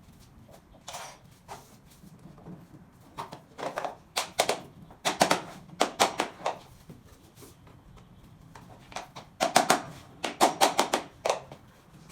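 Bursts of quick, sharp taps and clicks in several clusters, from SPC stone-plastic floor planks being tapped and clicked together during installation.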